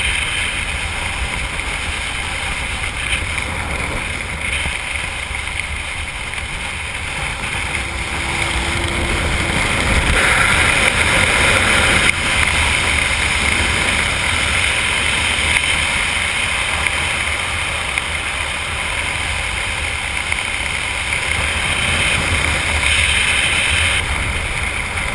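Steady wind rushing over the microphone of a skydiver's camera during descent under an open parachute canopy. The rush grows louder about ten seconds in and eases slightly near the end.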